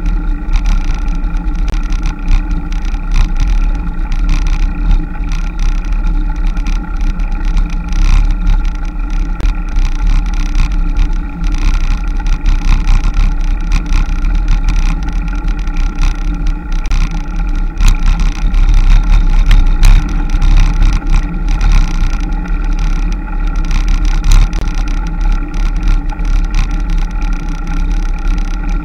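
Wind buffeting on a camera mounted on a moving vehicle, a heavy fluttering rumble over a steady drone of vehicle running noise with a few constant tones.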